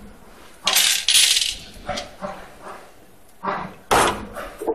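Metal parts of a cinema chair frame clinking and scraping as they are handled, in several short bursts, the loudest about a second in and again near four seconds.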